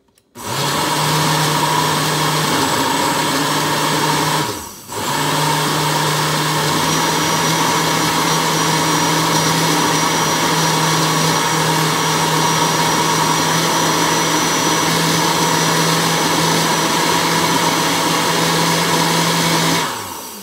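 Oster 6812-001 blender's motor running loud and steady, blending a berry smoothie in its glass jar. It starts about half a second in, cuts out briefly about a quarter of the way through and starts again, then winds down near the end.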